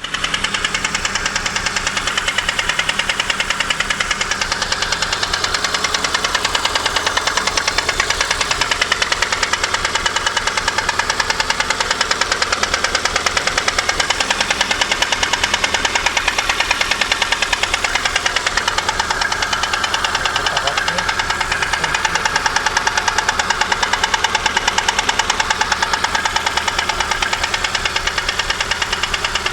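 VAZ-2115 Samara's 1.5-litre eight-valve engine running steadily with a strong, ringing knock repeating rapidly and evenly in time with the engine. The owner suspects the fourth piston slapping, with the valves adjusted and the camshaft seemingly not at fault.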